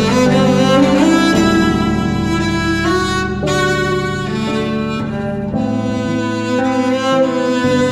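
Carbon-fibre cello bowed in a slow melody of long held notes, with lower notes sustained beneath.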